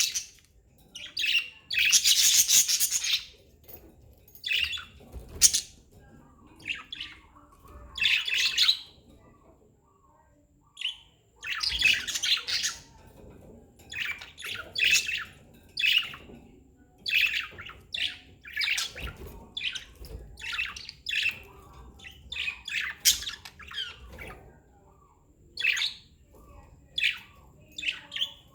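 Budgerigars chirping in short, irregular bursts, with a few longer calls, one about two seconds in and another about twelve seconds in.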